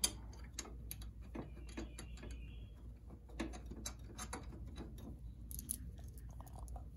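Irregular, faint clicks and ticks of small screws being threaded by hand into a metal shift-lever bracket.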